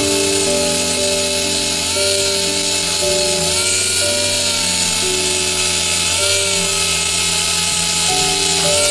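Random orbital sander running steadily against thin aluminium sheet, a loud even hiss that cuts off at the very end. Background music with held notes plays under it.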